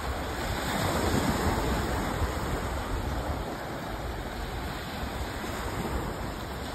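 Gulf of Mexico surf washing onto the beach, with wind buffeting the microphone.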